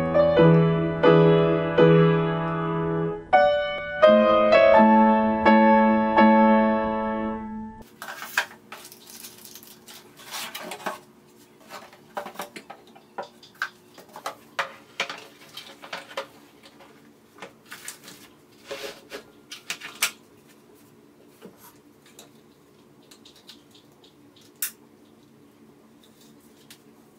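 Piano music that stops about eight seconds in, followed by faint handling noises of unboxing a cordless circular saw: scattered clicks, knocks and rustles of the tool, its cardboard box and its plastic case, with one sharper click near the end. A faint steady hum runs underneath.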